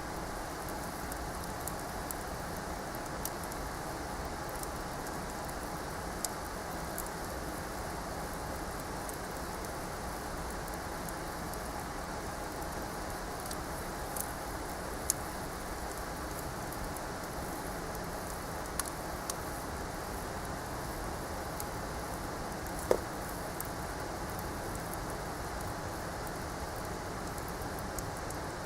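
Wood campfire burning with a steady hiss and scattered sharp crackles and pops, one louder pop about two-thirds of the way through.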